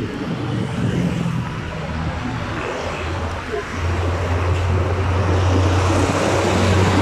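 Road traffic and wind noise while riding along a highway shoulder. From about four seconds in, a passing motor vehicle's engine adds a steady low drone that grows louder toward the end.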